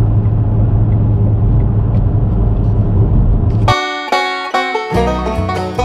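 Steady road and engine rumble heard inside a moving car, cut off abruptly about two-thirds of the way through by a bluegrass-style banjo tune, with a bass line joining about a second later.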